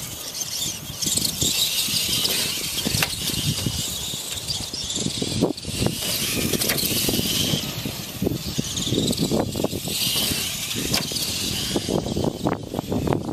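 Electric radio-controlled Clod Buster monster trucks racing over grass, their motors and gears whining up and down with the throttle, with scattered knocks as they bounce over ramps and rough ground.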